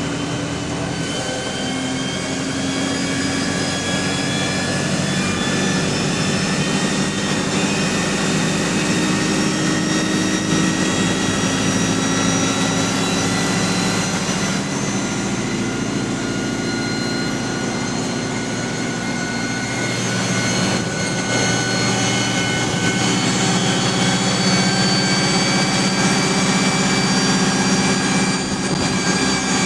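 Alexander Dennis Enviro200 bus with a Voith automatic gearbox under way, heard on board: a steady drive noise with a layered transmission whine that climbs slowly as the bus gains speed, dipping briefly about two-thirds through and again near the end.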